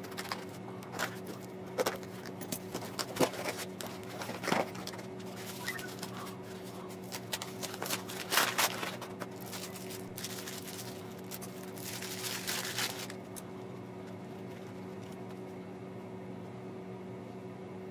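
A small cardboard box handled and opened by hand: scattered taps, clicks and scratchy rustles of cardboard and packing, with a longer rustle about twelve seconds in. Then only a steady low hum, which is also under the handling sounds.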